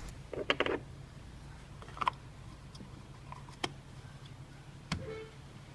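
A few scattered light clicks and knocks, a small cluster near the start and three single ones later, over a low steady hum.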